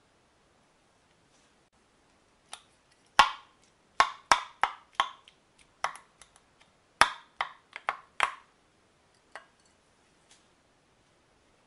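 Wooden muddler knocking against the bottom of a glass bowl while mashing diced strawberries: a run of sharp knocks in uneven clusters, starting a couple of seconds in, with a few faint taps near the end.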